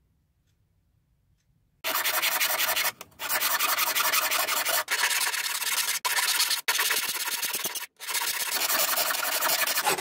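Hand file rasping rapidly back and forth along the edge of a silver sheet blank held against a wooden bench pin, shaping the cut edge. It starts about two seconds in and goes in several long runs of strokes with brief pauses between them.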